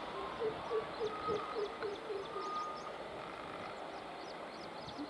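A bird calls a quick series of about eight short, low hoots, roughly three a second, falling slightly in pitch. Small birds chirp high above it over a steady background rush.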